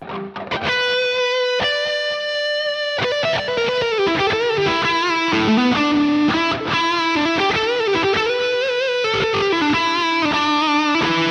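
Distorted electric lead guitar played through the Tonocracy amp-modeler plugin. It opens with long held notes, stepping up once, then moves into a melodic lead line with string bends and vibrato.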